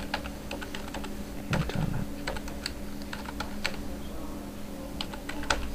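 Computer keyboard being typed on: an irregular run of key clicks as a name is entered, over a faint steady low hum.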